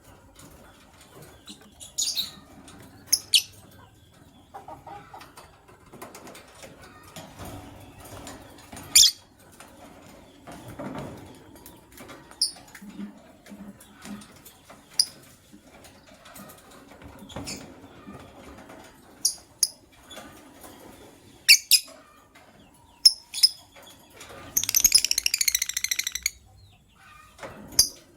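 Lovebirds giving short, sharp, high-pitched chirps every few seconds, with a rapid run of chattering calls near the end. Softer wing flapping and rustling fill the gaps.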